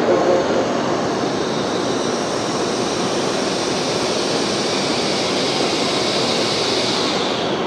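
JR West 700 series Rail Star shinkansen starting to pull out of the platform: a steady rush of running and equipment noise, with a higher whine that grows louder in the second half as the train gathers speed.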